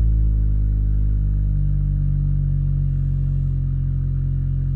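Vonyx SPJ1000A powered speaker's woofer playing a steady low-bass test tone during a frequency-response check, with a stack of overtones above it that shift slightly about a second and a half in.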